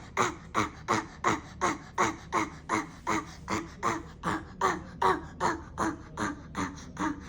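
A child's psychogenic (habit) cough: short, repetitive cough sounds at about three a second in an unbroken run, each dropping in pitch.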